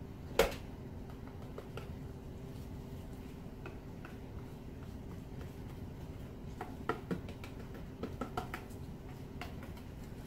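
Light clicks and taps of a metal paint scraper being handled against the painting table: one sharp tap about half a second in, then two short clusters of small clicks later on, over a steady low room hum.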